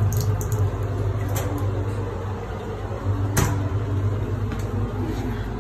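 Steady low hum, with one sharp click about three and a half seconds in and a few lighter clicks.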